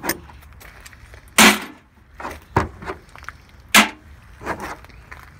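A series of sharp knocks and clanks, about six in five seconds, from tools and parts being handled during repair work on a vehicle's engine. The loudest come about a second and a half in and near four seconds.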